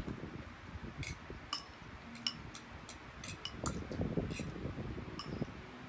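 Metal forks clinking and scraping against ceramic plates, about seven sharp clinks with a brief ring. Under them, the chewing and mouth sounds of two people eating pasta.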